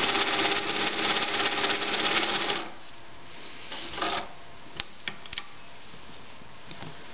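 A 1956 Pfaff 130 sewing machine with its Automatic 50010 cam-stack attachment runs fast, stitching the cam-2 tapering zigzag pattern, then stops abruptly about two and a half seconds in. After that come a brief rustle of cloth and a few light clicks as the work is handled.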